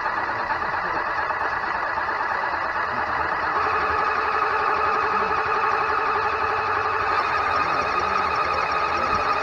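Electric LEGO Technic motors and gear train of an RC tracked vehicle whining steadily, heard close up from a camera mounted on the vehicle. The whine gets a little louder about three and a half seconds in.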